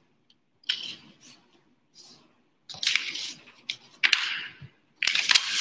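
Sheets of paper rustling as they are picked up and handled, in several short bursts of crinkling over a few seconds.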